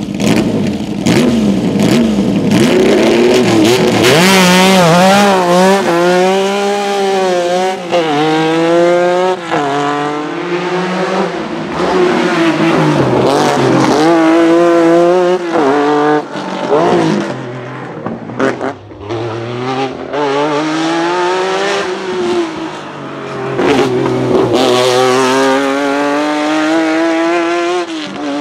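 Lancia Stratos HF Group 4 rally car's Ferrari Dino 2.4-litre V6 revving hard, climbing through the gears with quick shifts. The revs fall back and it pulls hard again several times.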